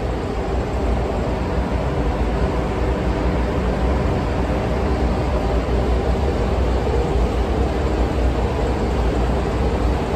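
Steady, unchanging drone of ship's engine-room machinery: a loud low rumble with a faint hum over it.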